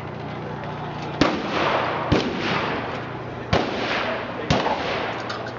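Four shotgun blasts at a clay-target range, a second or so apart at uneven spacing, each trailing off in a long fading echo.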